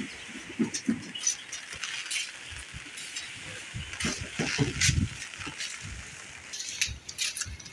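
Strong typhoon wind gusting and buffeting against the microphone in irregular low rumbles, over a steady hiss, with scattered light taps.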